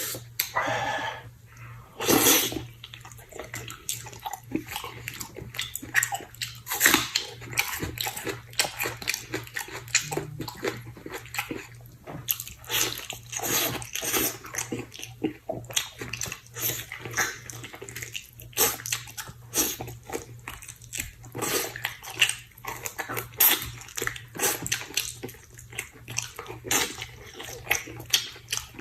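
A person eating chicken stewed with mushrooms close to the microphone: wet chewing, smacking and sucking sounds in quick, irregular succession.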